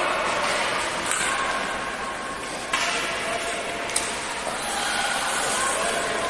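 Ice rink ambience in an echoing arena: a steady hiss of skate blades on the ice, with a couple of sharp clacks of a stick or puck, one about two-thirds of the way in, and faint distant voices.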